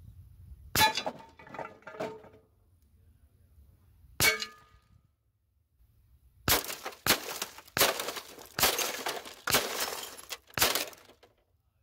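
.45-calibre lead air-rifle slugs striking targets: two ringing metallic clangs, about a second and about four seconds in, as the slugs hit a thick aluminum transmission pan and knock it over. Then from about six and a half seconds in, about six crashing impacts follow, the slugs smashing into a photocopier's plastic housing and glass.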